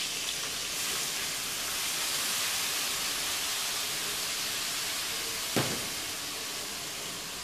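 Frying pan of browned guinea fowl pieces sizzling in hot oil as lemon juice is poured in and boils off: a steady hiss. A single sharp knock about five and a half seconds in.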